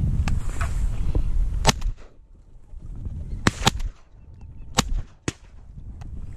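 Shotgun shots: about five sharp reports spread over roughly four seconds, the first about a second and a half in, two of them in quick succession. Wind rumbles on the microphone until just after the first shots.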